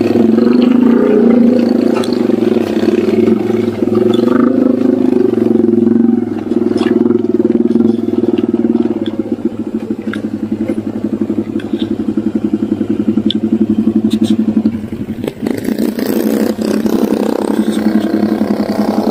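Honda EX5 four-stroke single-cylinder motorcycle engine running at low revs on a dirt track. Midway it settles into an even, steady putter, and the sound changes about three quarters of the way through.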